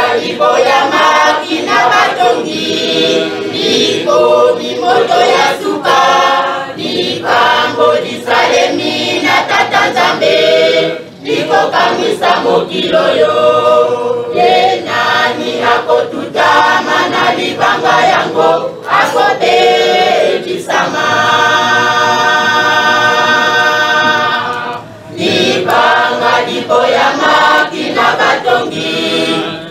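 A crowd singing a hymn together in chorus, with one chord held for about four seconds a little past two-thirds of the way through.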